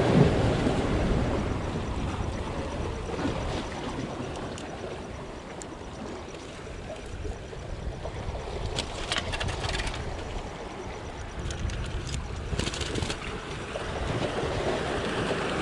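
Wind buffeting the microphone over the wash of sea water, with a few short clicks and rattles about two-thirds of the way through.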